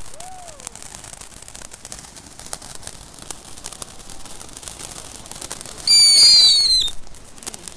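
Ground fireworks spraying sparks with a steady crackling hiss. About six seconds in, a whistling firework lets out a loud shriek for about a second, its pitch falling slightly.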